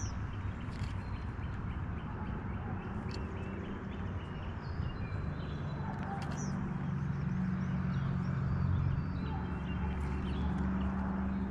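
Outdoor background of small birds chirping over a steady hiss, with a low steady hum growing louder from about halfway through.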